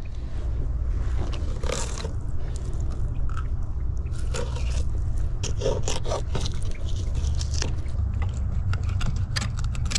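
Fillet knife scraping and cutting through a trout along the backbone in short, irregular strokes, over a steady low rumble.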